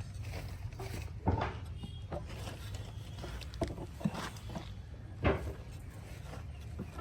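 Scattered knocks and clunks from hands-on assembly of a wooden speaker cabinet, the two loudest about a second in and about five seconds in, over a steady low hum.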